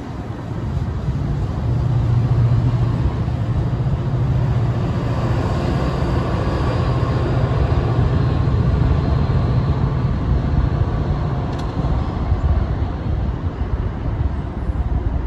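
Diesel-hauled commuter train going by: a steady low locomotive engine drone that builds over the first couple of seconds and fades near the end, over the running rumble of the train.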